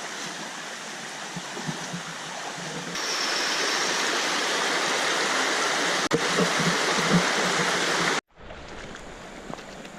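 River water rushing steadily over rocks. It grows louder about three seconds in, cuts off abruptly just after eight seconds, then goes on as a quieter rush.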